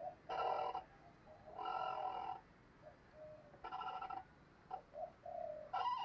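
Spotted dove cooing in a bowing display: four loud coos about every one and a half to two seconds, with softer, lower notes between them.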